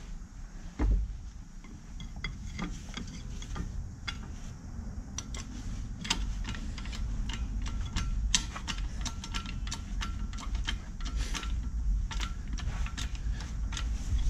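Hand-operated hydraulic shop press being worked slowly to press a new bushing into a control arm: a thump about a second in, then a run of light, irregular clicks and ticks from the press mechanism.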